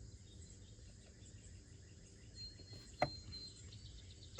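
Quiet outdoor background with a steady low hum and a faint, thin high chirping from insects, and a single sharp click about three seconds in.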